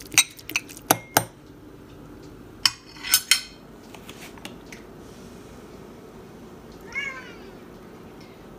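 A fork clinks against a ceramic bowl a few times in the first second, with more clinks about three seconds in. Near the end a domestic cat gives one short meow while it waits to be fed.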